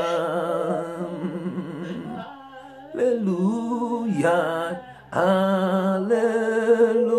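A solo voice slowly singing a drawn-out worship chant of 'hallelujah', holding long notes with wavering ornaments, with two short breaks for breath.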